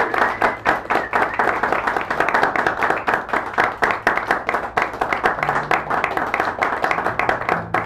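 Audience applauding: dense, steady hand clapping that eases off near the end.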